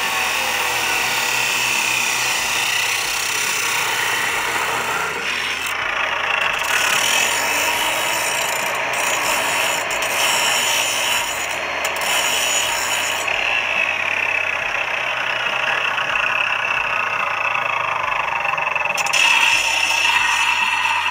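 Makita abrasive cut-off (chop) saw running at full speed, its half-worn abrasive wheel cutting through steel tubing in a shower of sparks. Near the end the cut tube's sharp burr is ground off against the side of the still-spinning wheel.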